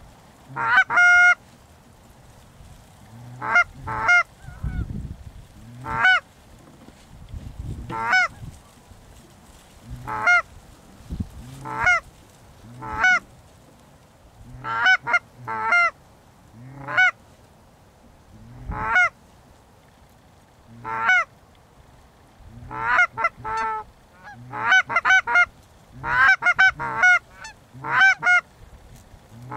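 Goose honks and clucks, loud and sharp, one or two every second or two, quickening into rapid runs of clucks over the last several seconds as Canada geese are worked in.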